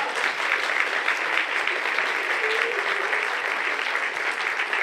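Theatre audience applauding, steady clapping of many hands.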